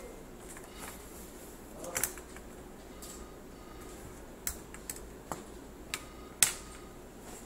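A cardboard box and a fabric tripod bag holding an aluminium tripod being handled on a desk: scattered light taps and knocks, with the sharpest knock about six and a half seconds in.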